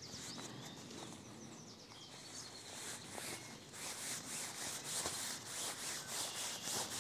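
Onewind hammock tarp fabric rustling and rubbing as it is pulled out and unpacked. Faint at first, then from about four seconds in a steady run of rubbing strokes, roughly three a second, getting louder.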